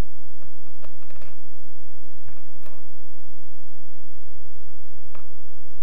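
Soft, scattered taps and rustles of cut latex balloon strips being handled and knotted onto a rubber flip-flop strap, over a steady low hum.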